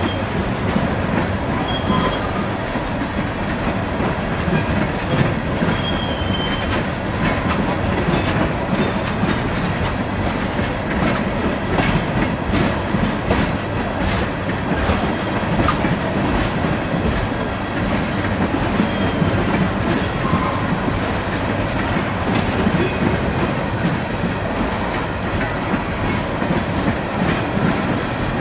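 Freight train of tank cars rolling steadily past: a continuous rumble of steel wheels on rail with repeated clicking over the rail joints and a few brief, faint wheel squeals.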